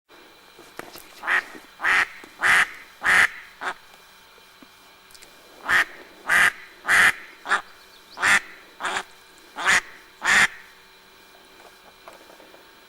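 Live decoy hen duck quacking in two loud series, about five calls and then about eight, each call roughly half a second apart: the hen calling down a drake.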